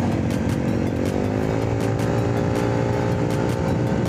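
Motor scooter engine running at cruising speed, its pitch rising slightly about a second in and then holding steady, with wind and road noise on the microphone.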